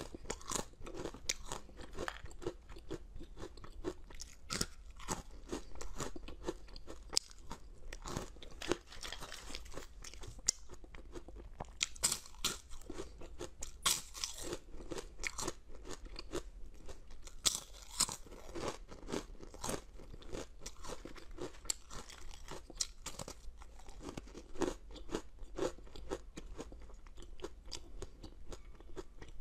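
Close-miked biting and chewing of crisp dried fruit and vegetable snacks: many sharp, irregular crunches in quick succession.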